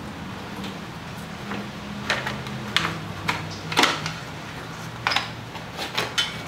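Hands moving wiring and small parts around a motorcycle's battery box: a scatter of short clicks and knocks, the loudest about four seconds in, over a steady low hum.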